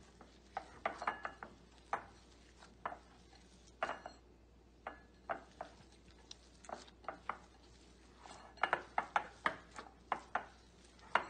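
Dough being kneaded by hand in a ceramic bowl: irregular light knocks and clicks as the bowl is pushed and turned against the countertop, coming in a quicker run near the end.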